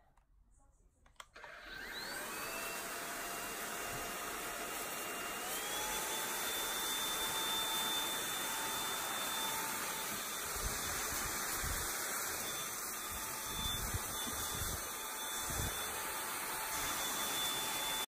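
A robot vacuum cleaner's motor starts about a second in, its whine rising as it spins up, then runs steadily with a rush of air. Its pitch steps up once more a few seconds later.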